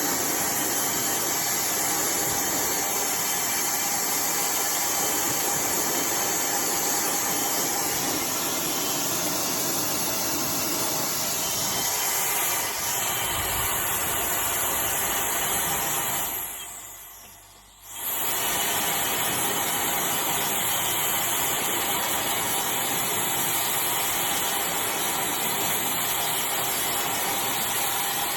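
iDryer AI Pro Style hair dryer blowing with a steady hiss. A little past halfway it fades out over about two seconds, then comes straight back on at full strength.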